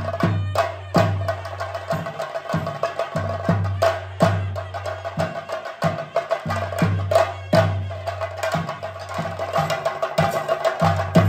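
Chenda drums of theyyam ritual music beaten with sticks in a fast, dense rhythm, with a steady held note over the strokes and repeated low booms underneath.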